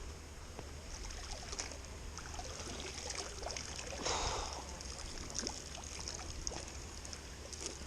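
Water trickling and dripping, with scattered small knocks and a brief louder splash about four seconds in.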